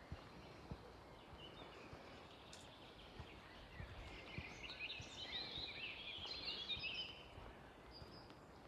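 A songbird singing a rapid, jumbled twittering phrase for about three seconds in the middle, over faint outdoor background noise.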